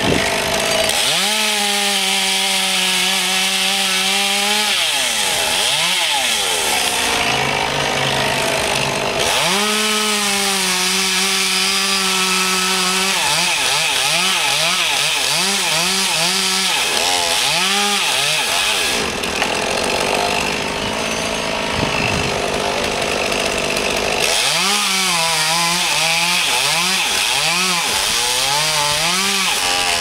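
Chainsaw cutting a tree limb. The engine is held at full speed for several cuts of a few seconds each, with quick revs up and down and short spells of lower running in between.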